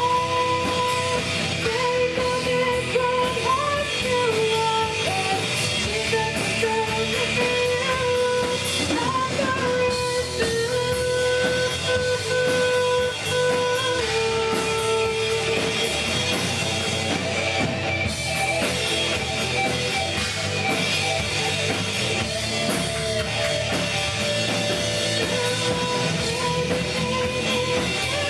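Rock-style band music with singing, electric guitar and drum kit.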